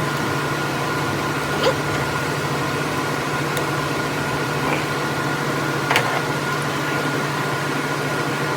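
Steady hum of room fans running, with a couple of faint clicks about two and six seconds in.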